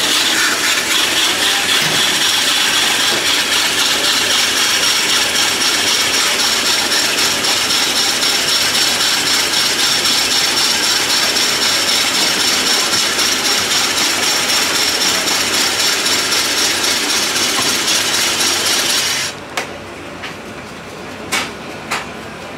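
Electric ice-shaving machine running, its spinning blade shaving a block of ice: a loud, steady scraping with a high whine over it. It stops about nineteen seconds in, followed by a few light knocks.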